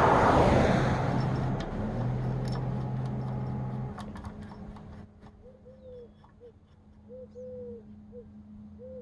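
A motor vehicle goes by, its noise fading away over the first four seconds. After that a dove coos several times in soft, low, repeated hoots.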